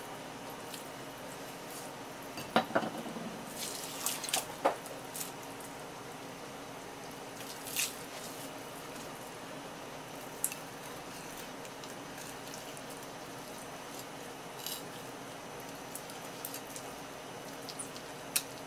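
Kitchen knife filleting a large red sea bream on a wooden board: scattered small clicks and wet scraping as the blade works along the bone and the fish is handled, most of them in a cluster a few seconds in. A steady faint hiss underlies it.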